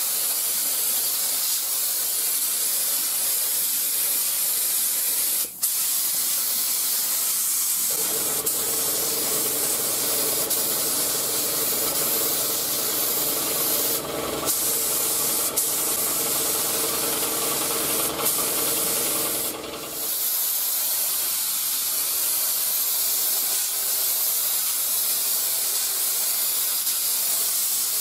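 Gravity-feed air spray gun hissing steadily as it sprays primer surfacer onto a truck bed panel, with a few brief breaks. A lower hum joins from about 8 seconds in and drops out about 20 seconds in.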